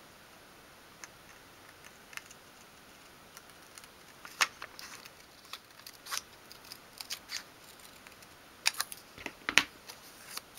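Small scissors cutting out a paper template, a run of short, irregular snips, loudest and closest together near the end.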